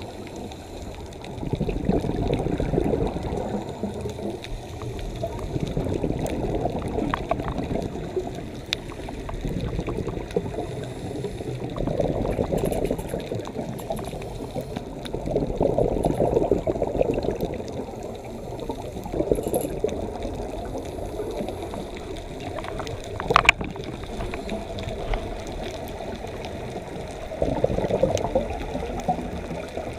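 Scuba breathing heard underwater: exhaled bubbles gurgling out of the regulator in swells every few seconds, muffled, with one sharp click about three-quarters of the way through.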